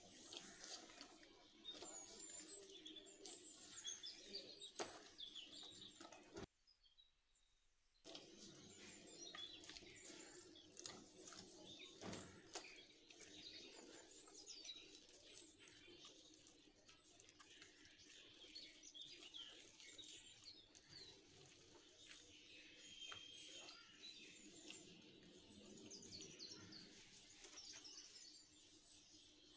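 Faint chirping of small birds in the background, with occasional soft sticky squelches and taps as hands lift and fold butter into soft bread dough in a glass bowl. The sound drops out completely for about a second and a half a little after six seconds in.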